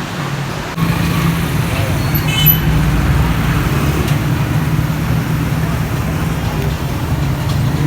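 Steady road-traffic and engine noise that cuts in abruptly under a second in, with a brief high tone about two and a half seconds in.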